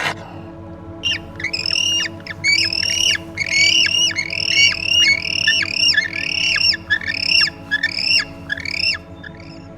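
A bird squawking over and over, about two short calls a second, each call dropping in pitch, for most of the stretch.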